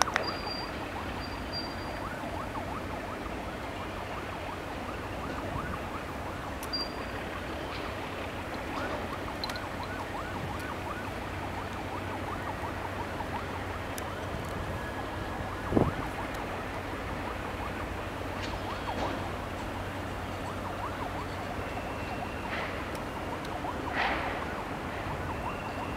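Steady background noise of distant road traffic with a low hum, broken by one sharp knock about two-thirds of the way through and a couple of short louder sounds near the end.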